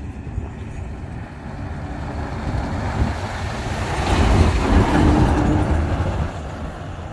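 Heavy goods truck passing close by on the road. Its engine and tyre noise builds to a peak about four to five seconds in, then fades as it moves away.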